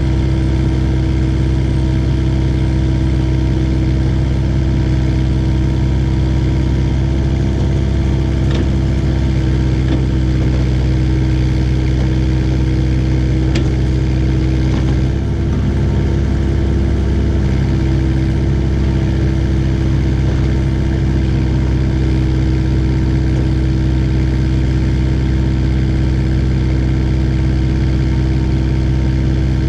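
Diesel engine of an IHI 80NX excavator running steadily at a constant speed, its low note shifting slightly about halfway through.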